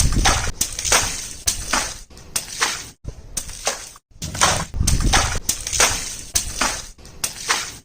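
Water balloons bursting one after another, about two a second: each a sharp pop with a short fading spray, some with a low wash of water. A few brief silent breaks fall between takes.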